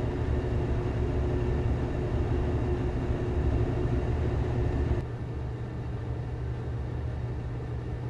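Gas furnace running at steady heat, its blower fan and burners making a steady low rumble with a faint hum. About five seconds in the sound drops a little and the hum stops.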